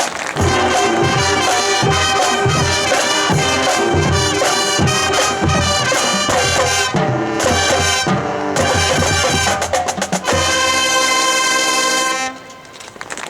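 High school marching band playing: brass over regular drum hits, ending on a long held full chord that cuts off about a second before the end.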